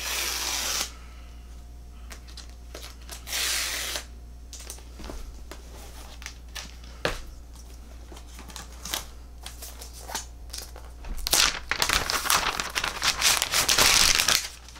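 Packaging of an Apple Magic Keyboard being opened by hand: two short tearing rips at the start and about three seconds in, scattered clicks and handling noises, then a few seconds of loud rustling and crinkling near the end.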